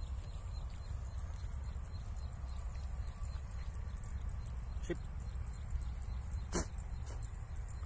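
Steady low rumble of wind buffeting a phone microphone, with two short sharp sounds about five and six and a half seconds in.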